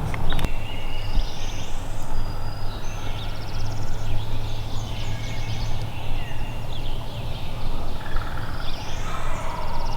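Songbirds chirping and trilling in the woods, with a wild turkey gobbling near the end.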